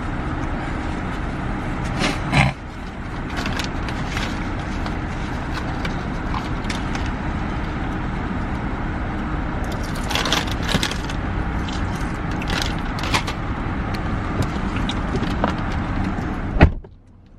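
Car running, heard from inside the cabin: a steady engine and road hum with scattered small clicks and rattles and a louder knock about two seconds in. Near the end a sharp click comes and the hum cuts off suddenly.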